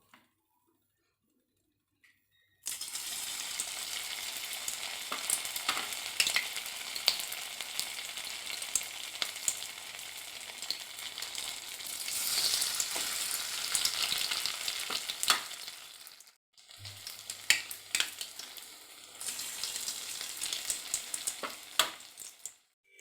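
Balls of bread and vegetables deep-frying in hot oil in a kadai: a steady sizzling hiss full of sharp pops and crackles. It starts suddenly a few seconds in and drops out briefly about two-thirds of the way through.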